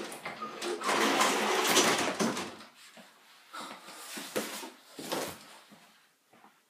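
A door being pushed open, then rustling and a few light knocks as someone walks in and pulls off a backpack.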